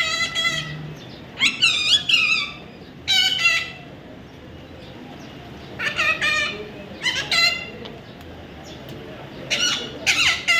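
Baby parrot calling in short bouts of raspy, high-pitched chatter, about six bursts, each with bending pitch and pauses between them.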